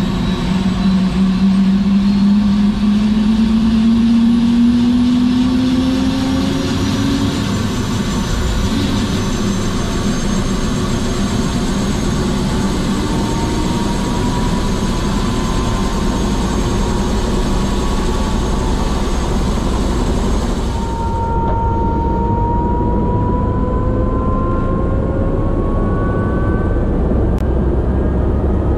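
Airbus H125 (AS350 B3e) helicopter's Arriel 2D turboshaft engine and rotor running loudly and steadily, with tones rising in pitch over the first several seconds and again later. About three-quarters of the way through, the high hiss drops away suddenly.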